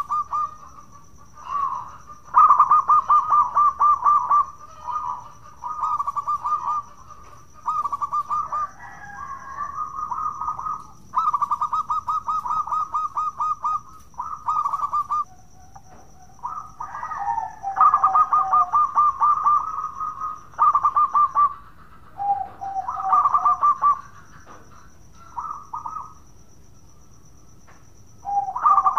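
Zebra dove (perkutut) calling over and over: bursts of rapid, trilled cooing, some phrases dropping to a lower closing note, with short pauses between.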